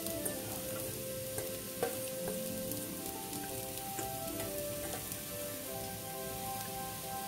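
Freshly added grated carrots sizzling in hot ghee in a pan, with a few light clicks from a utensil. Soft background music with held notes plays over it.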